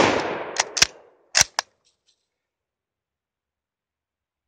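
A shot from an Ishapore No.1 Mk III Lee-Enfield .303 rifle right at the start, ringing out and fading over about a second. It is followed by four sharp metallic clicks in two quick pairs as the bolt is worked open and closed to chamber the next round.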